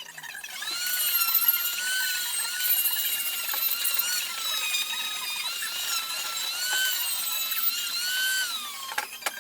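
Small high-speed power tool, such as a drill or rotary tool, working on the hand plane. It starts about half a second in and runs with a whine that wavers in pitch under load, then the pitch falls and it stops near the end as it spins down.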